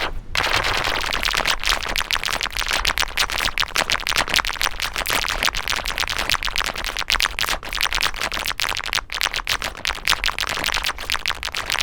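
Electronic keyboard playing a quick run of short notes in G major with a synthesizer voice, starting just after a brief gap.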